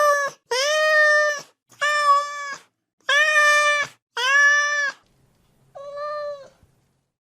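A cat meowing over and over: six drawn-out, steady-pitched meows with short gaps between them, the last one quieter.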